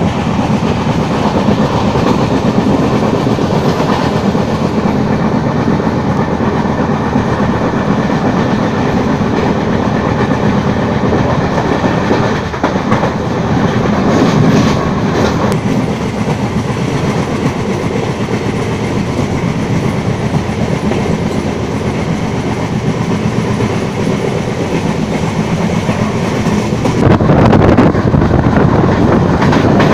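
LHB passenger coach running at speed, its wheels clicking and rolling over the rails, heard from the open coach doorway. The running noise is steady and grows louder near the end.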